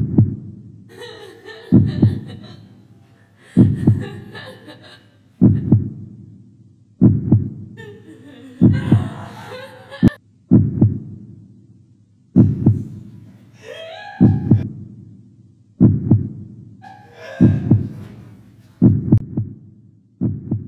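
Heartbeat sound effect: a slow, steady double thump (lub-dub) about every 1.7 seconds, each beat fading away. Between some beats come short bursts of a distorted voice.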